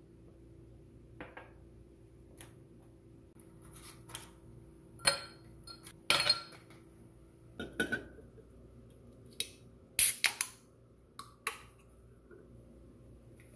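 Scattered sharp clinks and knocks of glass and kitchenware on a stone countertop: ice cubes clinking into a tall drinking glass and a drink can being handled. The loudest knocks come about five, six and ten seconds in.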